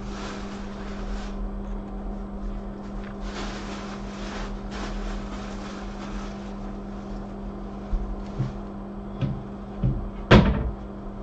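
A steady electrical hum with stretches of hiss, then a few short knocks of handling on a workbench near the end, the loudest one about ten seconds in.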